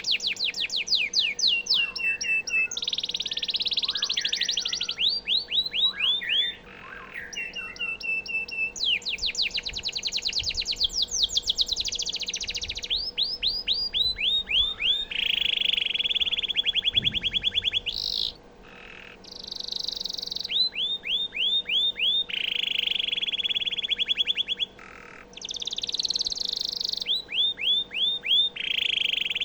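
Domestic canary singing a long, continuous song of rapid trills: fast runs of repeated downward-sweeping notes alternating with held buzzy notes, broken by a few short pauses.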